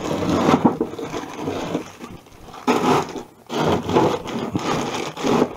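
Frozen peas and sweet corn rattling and rustling in their plastic bags as they are handled. The noise comes in three bursts: a long one, a short one about two and a half seconds in, then another long one.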